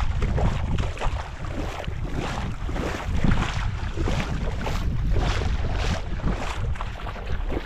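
Wind buffeting the camera microphone in uneven gusts: a heavy low rumble with bursts of hiss.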